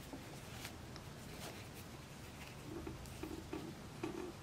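Quiet room tone with a few faint, light clicks and taps, and some soft low sounds in the last second or so.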